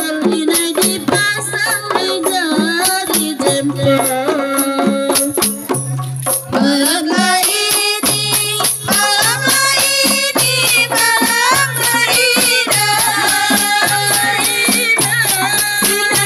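A rebana frame-drum ensemble playing a steady, repeating beat under amplified singing. The music grows louder and fuller about seven seconds in.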